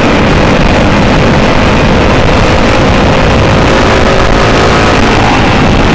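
Motor vehicle engines running loud and steady, with wind noise on the microphone.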